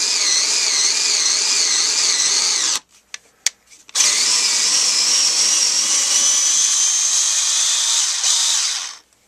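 Genesis 7.2-volt lithium-ion cordless screwdriver's motor and gearbox whirring in two runs. The first run stops about three seconds in. After a few light clicks, the second run lasts about five seconds.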